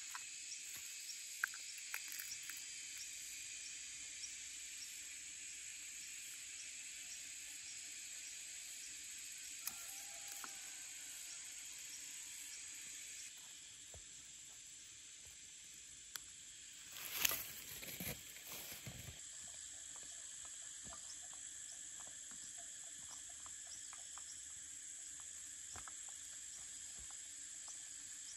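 Steady high-pitched chorus of insects. A few sharp knocks of a hand hoe striking soil sound near the start, and a brief rustling scrape of soil being handled close by comes about two-thirds of the way through.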